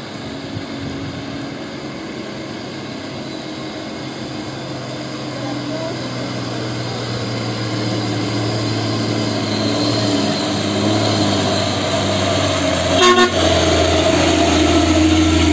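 Hino dump truck's diesel engine running and growing steadily louder as the truck approaches and passes close by. A short horn toot sounds about thirteen seconds in.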